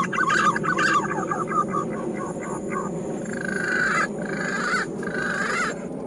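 Punai (green pigeon) whistling calls: a run of wavering notes gliding up and down, then three longer whistles near the end, over a steady background rush.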